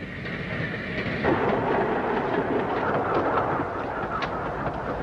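A railway car rumbling along the track in a steady, noisy roll, growing louder over the first second, with a few faint clicks.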